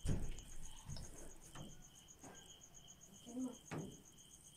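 Crickets chirping in a steady, fast, even high pulse, with a few soft knocks and rustles from handling, the loudest right at the start.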